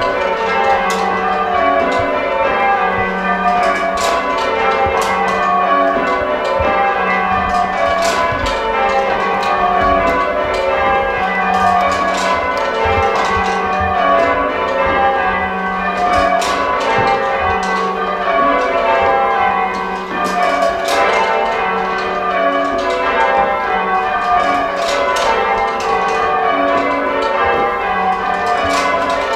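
Church tower bells rung full-circle in English change ringing, heard from the ringing room below. A continuous run of bell strikes steps down in pitch from the lightest bell to the heaviest, row after row.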